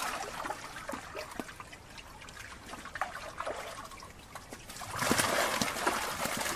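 Water trickling and splashing off a fishing keep net as it is hauled up out of a pond, with small splashes throughout, then a louder, steady pouring about five seconds in as more of the wet mesh comes clear of the surface.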